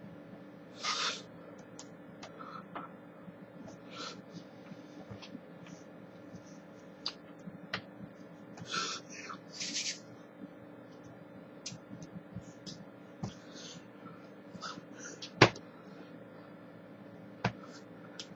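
Sounds of a person signing at a webcam: short breathy puffs and mouth noises, with hands clapping and slapping together, the loudest a sharp slap about fifteen seconds in, over a steady electrical hum.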